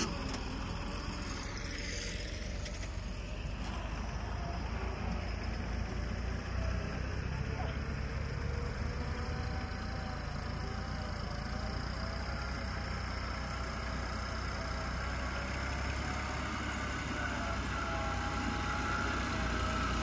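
Massey Ferguson 260 tractor's diesel engine running steadily under load while it pulls a trolley heaped with sand over a rough dirt track.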